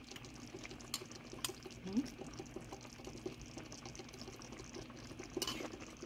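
Brown stew sauce bubbling at a simmer in a pan of fried snapper, a steady fine crackle, with a few light clicks of a metal spoon and one louder click near the end.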